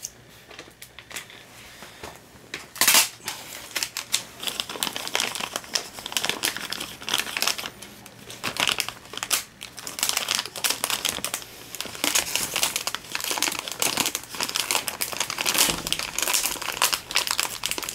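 Clear plastic bag crinkling and rustling as it is handled around a plant stem, in irregular crackles that come thick and fast from about four seconds in, with one louder crackle about three seconds in.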